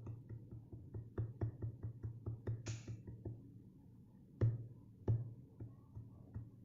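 Electronic drum beat: a quick run of kick and percussion hits, with a short hissing cymbal-like sound about three seconds in and two heavier hits a little past the middle.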